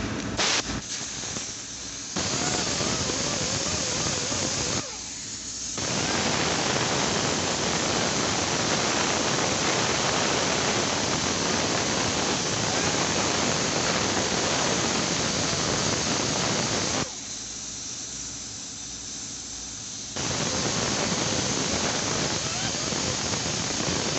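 A high-pressure jet hissing steadily. It is cut off twice, once briefly about five seconds in and once for about three seconds later on, and each time it starts again.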